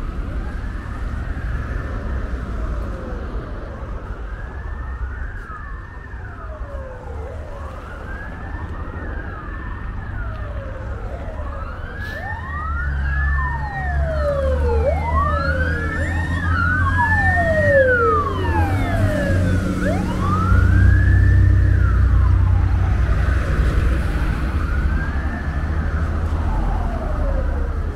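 Emergency vehicle siren wailing, each sweep rising and falling over about two seconds, the sweeps overlapping at times, growing louder towards the middle and then fading. A low vehicle engine and traffic rumble under it swells and is loudest about two thirds of the way in.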